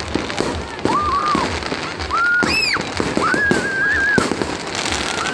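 Aerial fireworks going off in a rapid, irregular series of bangs and crackles. A few held high-pitched tones sound over them, one rising and falling about halfway through.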